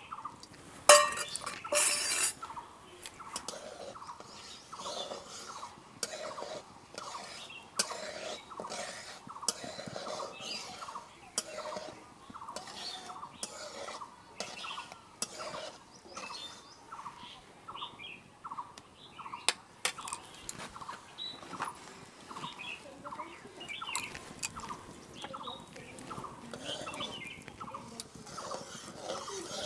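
A metal spoon, then a flat metal spatula, clinking and scraping against an aluminium kadai as a spoonful of sugar is stirred into hot oil. The taps are short and irregular, loudest about a second or two in.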